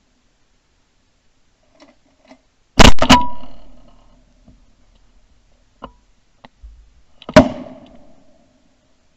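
Shotgun shots: two about a third of a second apart roughly three seconds in, then a third about four and a half seconds later. Each shot is a sharp crack with a trailing echo, and a few light clicks fall between them.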